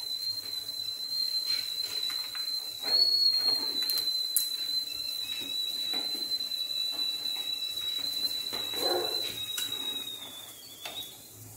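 Steam whistling through the vent in the lid of a stainless-steel idli steamer on a gas burner: one thin, high, steady tone that slides down in pitch and stops near the end as the lid is opened.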